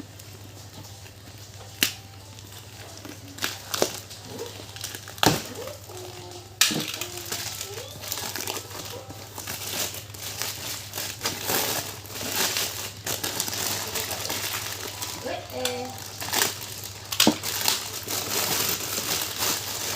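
A parcel's packaging being handled and torn open: a few sharp snaps and taps, then from about a third in, continuous loud crinkling and crumpling that carries on to the end, over a steady low hum.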